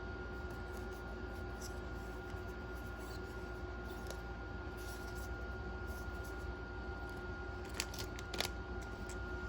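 Light handling noises of paper and card items: a few soft clicks and rustles, with a short cluster of sharper clicks near the end, over a steady hum with a faint whine.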